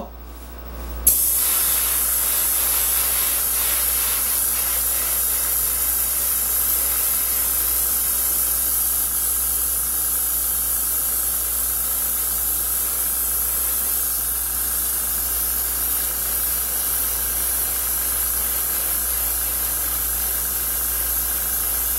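Central Pneumatic airbrush spraying thinned acrylic paint: a steady high hiss of air and paint mist that starts about a second in and runs without a break.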